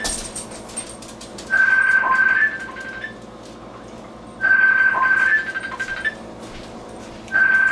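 Mobile phone ringtone: an incoming call ringing three times, each ring a held high tone of about a second with a short lower note, repeating about every three seconds.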